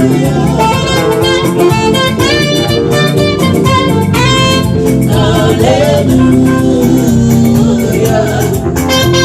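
Gospel band music: a steady backing with guitar under a bending lead melody line.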